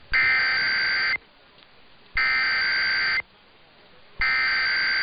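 Emergency Alert System SAME header: three one-second bursts of buzzing two-tone digital data, each followed by about a second of quiet. This coded header opens an EAS alert, here a monthly or weekly test.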